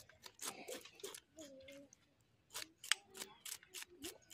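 Knife scraping the scales off whole fish on a steel plate: a run of short, sharp scraping strokes, several a second, with a brief lull a little before the middle.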